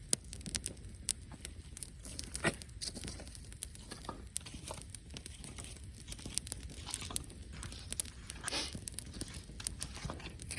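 Wood campfire crackling, with irregular sharp pops and a few longer, louder crackles.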